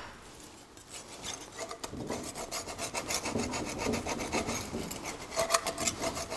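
Hand-held abrasive pad scrubbing back and forth on the thermostat housing's gasket face of a 1965 Triumph Spitfire engine, a run of quick rasping strokes that grows louder about two seconds in, cleaning off old gasket and corrosion.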